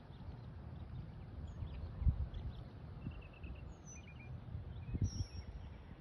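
Birds chirping in short high calls over a low, uneven rumble, with a thump about two seconds in and another about five seconds in.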